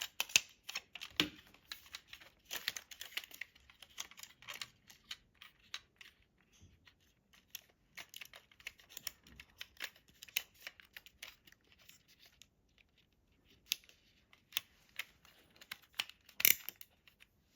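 Handling noise of film and a plastic disposable-camera body: irregular rustling, scratching and small clicks as the film leader is pushed through and into the take-up slit, with one sharper click near the end.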